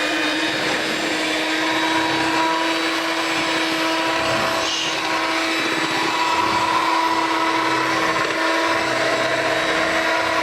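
Electric kitchen mixer running steadily at one speed, mixing chocolate batter in a bowl.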